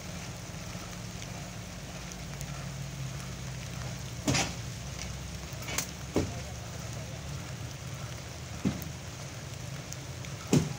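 Steady low hum of a stopped diesel train idling. A handful of sharp taps or knocks sound over it, the loudest near the end.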